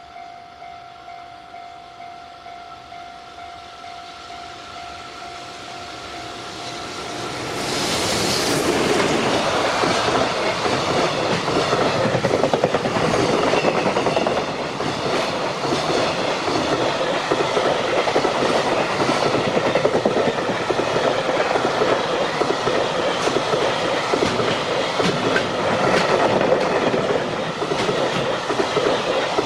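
Level crossing warning bell ringing as a JR Freight locomotive-hauled freight train approaches. The train reaches the crossing about eight seconds in, and its wagons run past with a loud, steady clickety-clack of wheels over rail joints.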